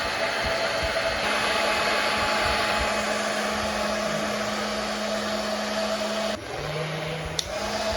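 Hair dryer blowing a steady loud rush of air with a motor hum. Near the end its motor drops to a lower pitch for about a second, then comes back up with a click.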